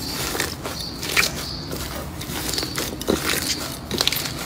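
Green textured slime squeezed and torn apart by hand, making irregular crackling and crunching, with a few louder crackles about a second in, near three seconds and near the end.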